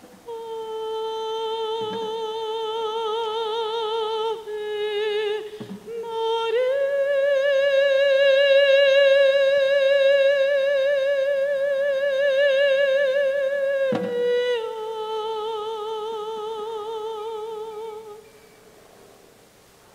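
A solo high voice singing wordless long held notes with vibrato: a first note, a higher note held for about seven seconds, then a lower note again before it fades out near the end.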